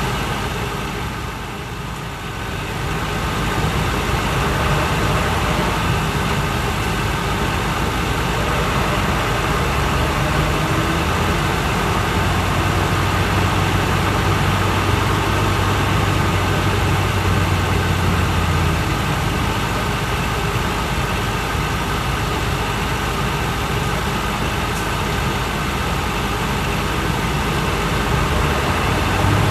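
Interior running sound of a Mitsubishi Fuso Aero King double-decker bus's V8 diesel engine, heard from the upper deck. It is quieter for a moment about two seconds in, then the bus pulls away and runs on steadily, with a low engine hum held for several seconds midway.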